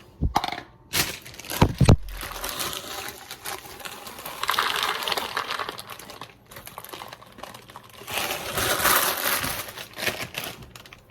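Crinkly snack bag of Hot Cheetos being handled and rustled open, with sharp crackles in the first couple of seconds and two louder stretches of crinkling about halfway through and near the end.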